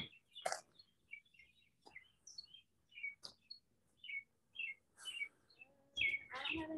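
Birds chirping outdoors in short, scattered calls, faint, with a few small clicks. A lower, pitched sound joins near the end.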